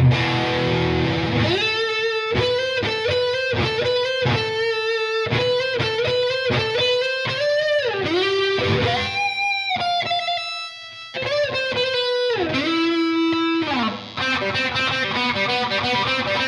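Burny LG-480 electric guitar played solo: after opening chords, a held note is picked over and over and bent up and down, with a few higher notes that fade about eleven seconds in. Near fourteen seconds a slide down leads into chord playing to the end.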